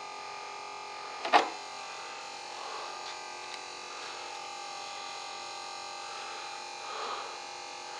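Small electric fuel pump running steadily with a thin whine while it fills an RC jet's fuel tanks. A single sharp click sounds about a second in.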